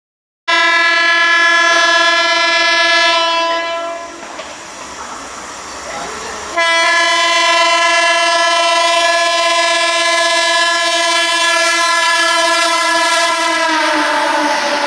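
12-car EMU suburban local train sounding its horn in two long blasts as it approaches at speed without stopping, with a pause of about two and a half seconds between them filled by the train's running rumble. Near the end the horn's pitch drops slightly as the train passes, and the rush and wheel clatter of the passing coaches swell.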